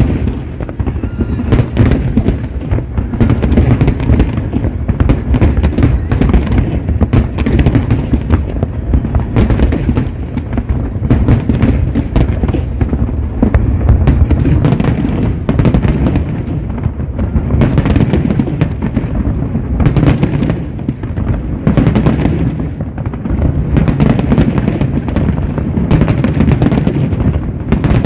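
Aerial fireworks display: a dense, almost continuous barrage of bangs and crackles, with strong deep bangs from shells bursting, easing briefly a little past the middle before picking up again.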